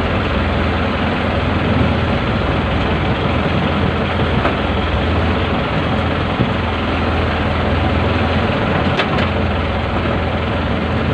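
Fishing boat's engine running steadily with a low hum, heard from inside the boat's cabin; a couple of light clicks about nine seconds in.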